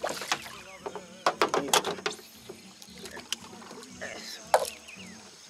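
Hooked golden dorado thrashing at the side of a boat as it is landed by hand: sharp slaps and knocks with water splashing, a quick cluster of them about a second and a half in and a strong one near the end.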